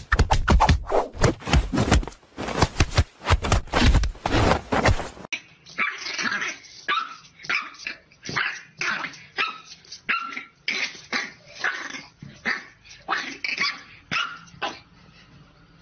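Dense rapid knocking and clattering from a wooden whack-a-mole cat toy being batted. About five seconds in, after a cut, a French bulldog puppy barks at its reflection in short high yips, about two a second, which stop about a second before the end.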